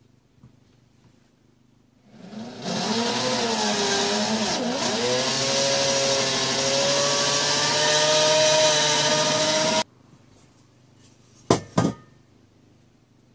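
Homemade rice flour grinder driven by a washing-machine motor with a spinning cutting blade, starting up about two seconds in and running loudly for about seven seconds, its whine wavering and dipping in pitch as it grinds the brown rice, then cutting off suddenly. Two sharp knocks follow near the end.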